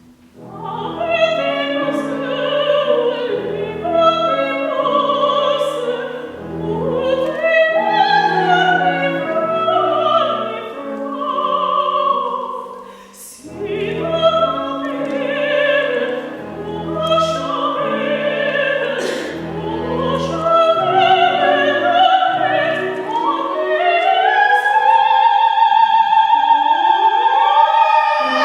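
Operatic singing with instrumental accompaniment, deep bass notes sounding about every two seconds under changing chords. Near the end the music climbs to a long, high held note with vibrato.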